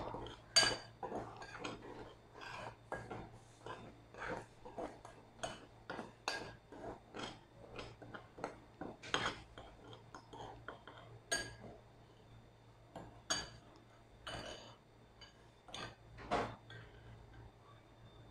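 Metal spoon stirring dry flour and sugar in a ceramic bowl, scraping and clinking against the bowl in irregular strokes, with a few louder clinks among the softer scrapes.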